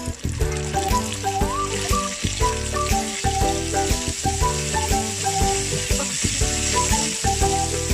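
Hot oil sizzling and bubbling hard as a batch of flour-dredged tawilis (small freshwater sardines) deep-fries in a pan. Background music with a melody and bass plays under it.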